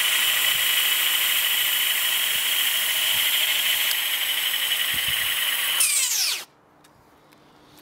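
Nine Continent (9C) brushless rear hub motor in a 20-inch e-bike wheel, spinning unloaded at top speed with the wheel off the ground: a steady, high electric whine. About six seconds in it winds down, falling steeply in pitch, and stops.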